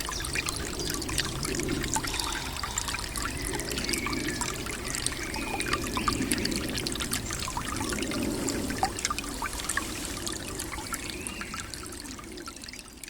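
Small brook trickling and splashing steadily, fading out near the end.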